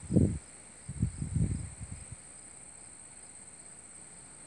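Steady high-pitched insect chorus with a few low rumbling thumps near the start and again about a second in.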